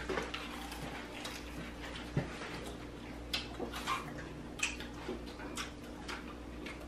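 People eating chicken wings: scattered wet lip smacks and mouth clicks as they chew, several of them about a second apart, over a steady low hum.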